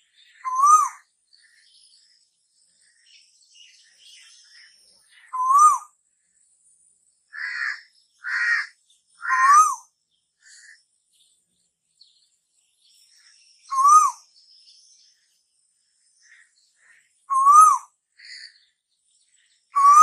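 Asian koel calling: a short note that rises and falls, repeated about six times a few seconds apart, with a run of three harsher, higher calls about halfway through.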